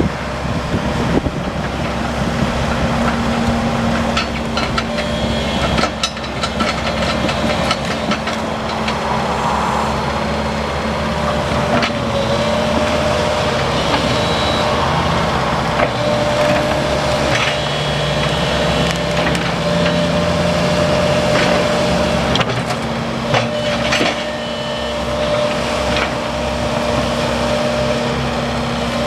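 2012 Link-Belt 135 Spin-Ace crawler excavator running and working: the machine runs steadily with a held whine, broken by frequent sharp clanks and knocks.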